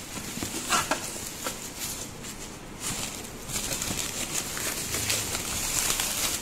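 Plastic bubble wrap crinkling and rustling in irregular crackly bursts as a wrapped unit is pulled out of a cardboard box.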